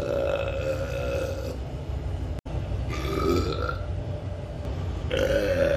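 A man burping through a knitted mask pulled over his mouth: a long burp that ends about one and a half seconds in, a shorter one about three seconds in, and another starting near the end. A suburban train's low running rumble lies underneath.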